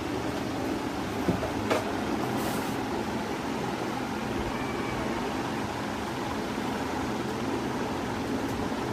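Steady background hum, with two light clicks about a second and a half in and a brief hiss shortly after.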